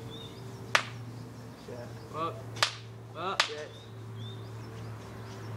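Three sharp cracks from a patio fire with a Lynx aerosol can heating in it: one about a second in, then two more close together in the middle.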